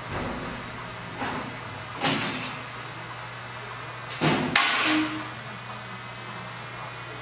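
MOPA fiber laser marking machine running while it marks steel: a steady low hum with a faint high whine. Several short knocks and clatters break in, the loudest about four and a half seconds in.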